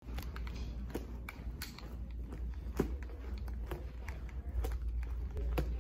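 Footsteps of a person walking, sharp steps at roughly two a second, over a steady low rumble from the handheld phone moving.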